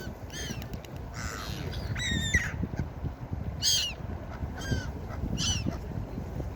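Gulls calling, a string of about six short, harsh cries, several of them falling in pitch, over a steady low rushing background.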